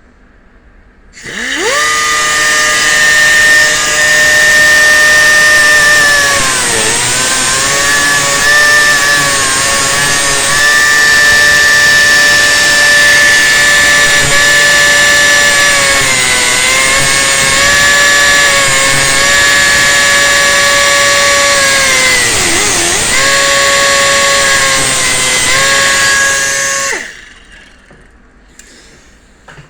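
Power tool spinning a cutoff wheel against a chainsaw chain's cutters: it starts up about a second in with a rising whine, runs with a steady whine and grinding hiss, and dips in pitch three times as the wheel bites the tooth, then shuts off near the end.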